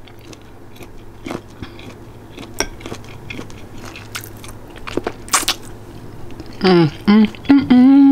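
Close-up chewing and biting of food, with scattered crisp crunches and clicks. Near the end a voice makes a few short wordless sounds.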